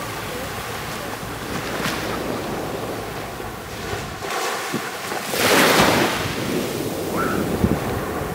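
Small waves washing onto a sandy beach, with wind on the microphone; one wave comes in louder about five and a half seconds in.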